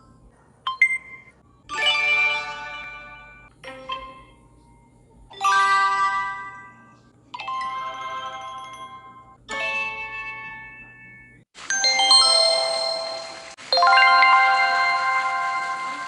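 Game show "correct answer" sound effects played one after another: about seven short, bright chime and jingle stings, each starting sharply and fading out, the last two louder and fuller.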